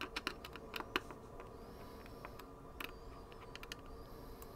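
Faint, sharp metallic clicks and taps of a screwdriver tip against a screw and washer on a circuit board as a resistor lead is worked under the washer. Several come in the first second and a few more about three seconds in.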